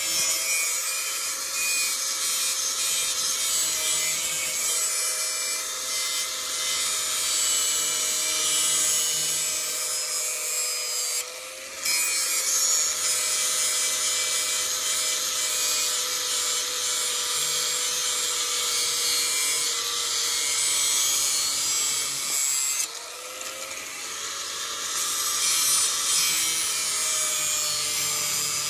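Grinder motor running with a steady hum while a knife blade is ground on the wheel, making a continuous high hiss. The grinding drops off briefly about 11 seconds in and again about 23 seconds in.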